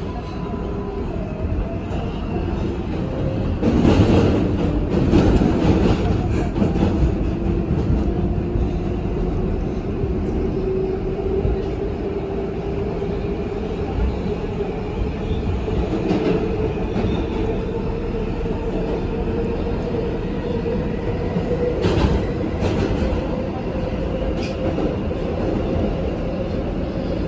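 R142A subway train running through a tunnel, heard from inside the front car: a steady rumble with a motor whine that climbs slowly in pitch. Wheels click and clack over the rail joints, loudest about four to seven seconds in and again near twenty-two seconds.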